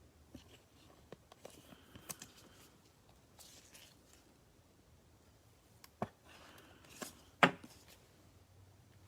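Trading cards and plastic card sleeves being handled on a table, with light clicks and rustles. There is a sharp tap about six seconds in and a louder knock about a second and a half later, as something is set down.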